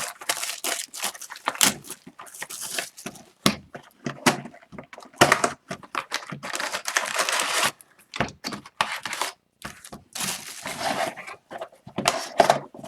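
Packaging of an Upper Deck Series 2 hockey card retail box being torn open: irregular tearing and crinkling of cardboard and pack wrappers, with scattered knocks and clicks as the packs are handled.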